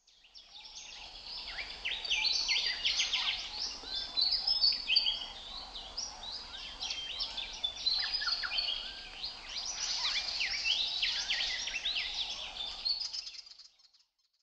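Several songbirds singing at once: a dense chorus of quick chirps, trills and whistled notes. It fades in at the start and fades out shortly before the end.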